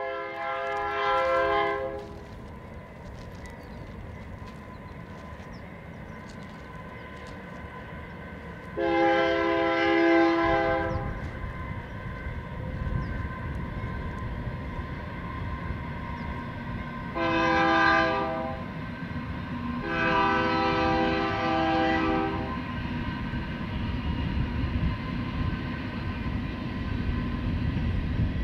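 Train horn sounding four blasts of one chord, long, long, short, long: the pattern of the grade-crossing signal. A train rumbles steadily beneath the blasts.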